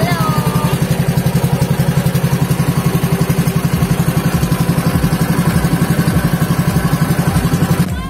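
Outrigger boat's engine running steadily at speed, a loud, fast, even chugging pulse.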